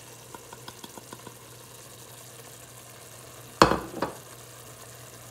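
Tomato and onion base sizzling faintly in a stainless steel pot while ground spices are stirred in with a wooden spoon. There are a few light clicks early on, then two sharp knocks about half a second apart a little past the middle, the first the loudest.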